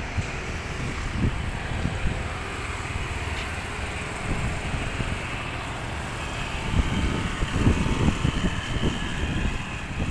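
Town street traffic: cars and motorbikes running past on the road. Low, uneven buffeting on the microphone grows heavier in the second half.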